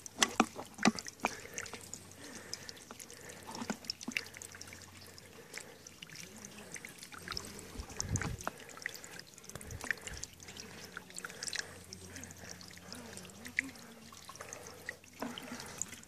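Spring water trickling down a wet rock face and dribbling into a plastic water bottle held under the flow, with many small scattered drips and clicks.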